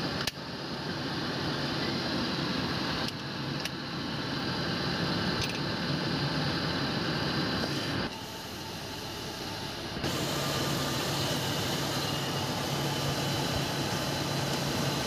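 Toyota 7K 1.8-litre carburetted four-cylinder petrol engine idling steadily during a tune-up, its idle being set at the carburettor. There are a few light clicks in the first seconds, and the engine drops quieter for about two seconds around the middle before coming back up.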